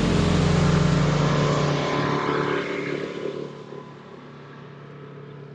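Boat running on its electric trolling motor at full speed, which is starting to weaken: a steady motor hum with rushing wind and water. It dies away to a low background about three seconds in.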